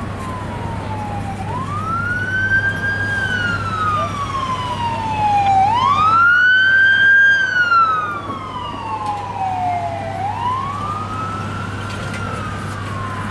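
A siren wailing: a tone that sweeps up quickly then slides slowly back down, about three times, each cycle lasting roughly four and a half seconds and the middle one the loudest. A steady low hum runs underneath.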